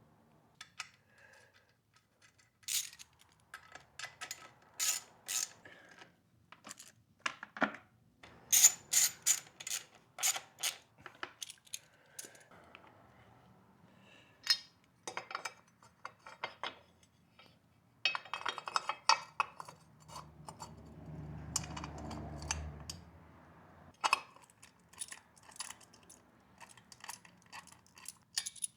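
Metal tools and parts being handled in a workshop: a string of sharp clicks and clinks, some in quick clusters, with a softer rustling, rumbling stretch a little past the middle.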